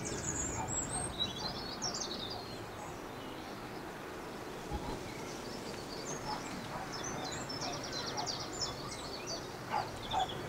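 Small birds singing and chirping over a steady outdoor hiss, with a fast trill of rapidly repeated notes a little after the middle.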